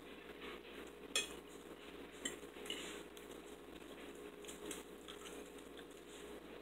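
Forks clinking and scraping on dinner plates, faint, with a sharper click about a second in.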